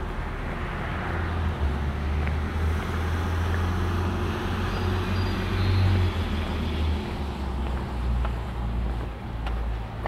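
A road vehicle passing by. Its rumble and tyre noise swell over several seconds, peak a little past the middle, then fade.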